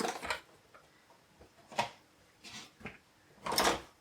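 A few short metal scrapes and knocks from handling a screwdriver and tools on a PC case, with quiet gaps between; the longest and loudest comes near the end.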